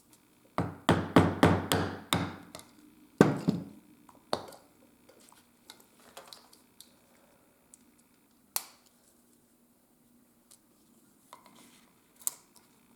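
Mallet striking a leather-working tool on a workbench: a fast run of about six heavy blows, two more a second later, then scattered single knocks and light taps.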